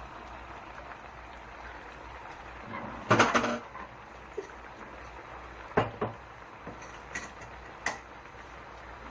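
Spicy pork rib stew simmering in a wok over a gas burner: a steady low hiss and bubbling. About three seconds in comes a short rattle of sharp metal clinks as a spoon knocks against the pan, followed by a few single clicks spread over the next few seconds.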